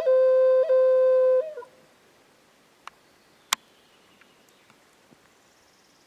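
Wooden vertical flute holding a long high note, flicked twice by quick ornamental grace notes, then ending about a second and a half in with a short falling turn. After that the forest is quiet apart from two sharp clicks.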